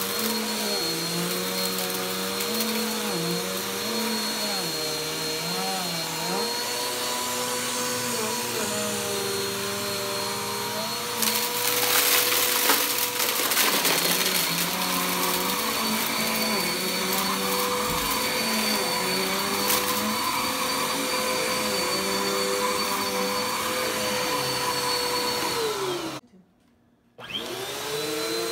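Upright bagless vacuum cleaner running on carpet, its motor hum wavering in pitch as it is pushed back and forth. Small debris crackles and rattles up the nozzle, loudest a little before the middle. Near the end the sound cuts out for about a second and the motor comes back.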